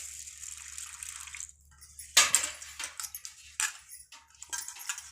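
Water pouring with a steady hiss for about a second and a half, then a sharp splash and a run of irregular splashes: arhar dal (pigeon-pea lentils) being washed by hand in water.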